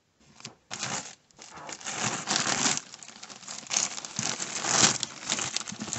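Clear plastic bags crinkling as a hand rummages through a cardboard box of bagged doll wigs. The crinkling comes in irregular bursts and starts a moment in.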